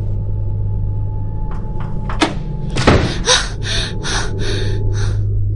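Cartoon sound effects of a door: a few light clicks, a hard thud about three seconds in, then a quick run of about eight rattling knocks, roughly three a second. A low steady drone sits under it all.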